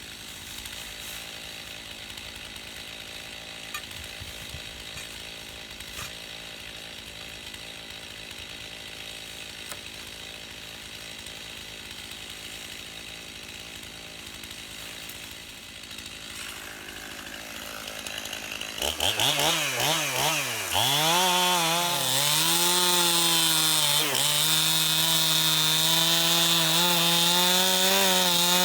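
Stihl MS291 two-stroke chainsaw idling, then about two-thirds of the way in revving up a few times and running at full throttle as it cuts into the log, the pitch dipping briefly once before it drops back off at the very end.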